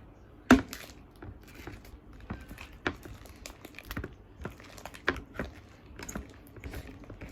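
Sticky homemade glue slime being kneaded and pulled by hand in a bowl, giving irregular sticky clicks, pops and crackles. A sharp knock stands out about half a second in.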